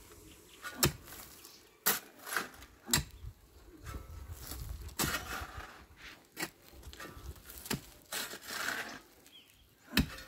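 Hand digging tools, a short-handled hoe and a long-handled digger, striking and scraping dry, stony earth. About eight sharp, irregular strikes, with the scrape and crumble of loosened soil between them.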